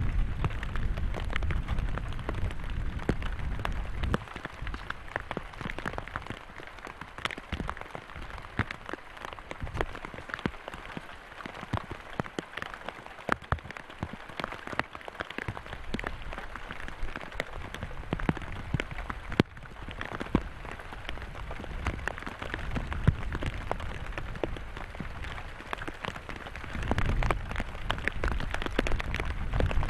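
Steady rain falling, with many separate drops ticking sharply close by. A heavier low rumble sits under it for the first few seconds and comes back near the end.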